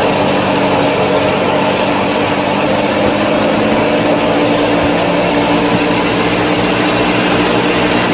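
Small motor of a DIY miniature wheat thresher model running steadily, a constant hum with several held tones.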